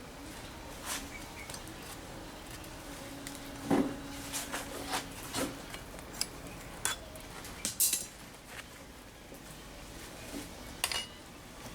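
Small metal pieces and tools clinking and tapping together in a workshop at irregular intervals. One louder clank about four seconds in is followed by a ringing tone of about two seconds.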